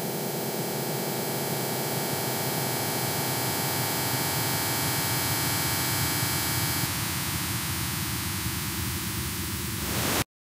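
Harsh industrial noise music: a dense wall of static-like electronic noise with many steady tones held through it. The texture shifts about two-thirds of the way through, and the noise cuts off abruptly near the end.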